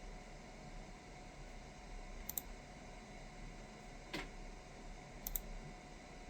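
A few isolated keystrokes on a mechanical keyboard: a quick double click about two seconds in, a single click past four seconds, and another double click near the end, over a faint steady hum.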